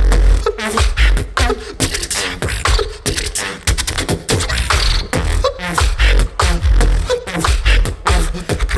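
Live beatboxing by a two-man beatbox team on amplified microphones: deep bass kicks and sharp snare-like clicks and hi-hat sounds in a steady, dense groove.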